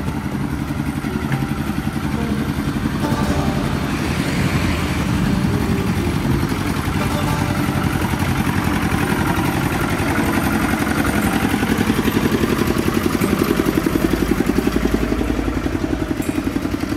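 Roadside traffic: motorcycles and other vehicle engines running close by. In the second half a nearby engine's fast, even chugging grows louder.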